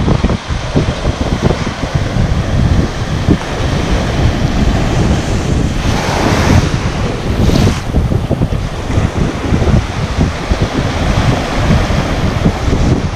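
Sea surf breaking and washing up the sand, with a louder wave wash about six seconds in. Strong wind buffets the microphone throughout.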